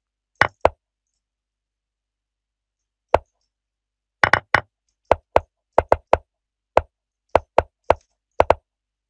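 Online chess move sounds: short, identical wooden knocks, one for each piece move, in a quick irregular run of about eighteen. A couple come at the start, one stands alone about three seconds in, then they follow each other fast to the end, often two at a time, as both players move almost at once in a bullet time scramble.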